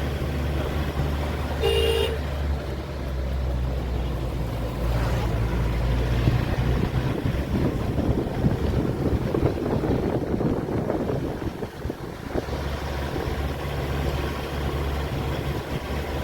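A vehicle's engine running steadily with road noise, and a short horn toot about two seconds in.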